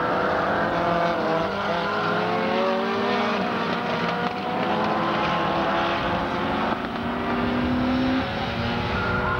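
Engines of several small Minirod race cars running hard together, their pitches rising and falling against each other as the cars race through the bends.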